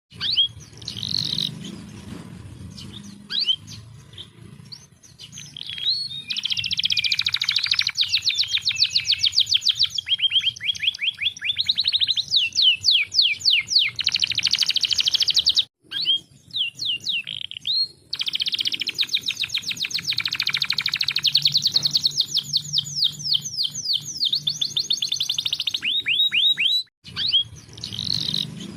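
Domestic canary singing: long, high-pitched song of rapid trills and rolling runs of repeated notes, broken by short silences about 16 and 27 seconds in.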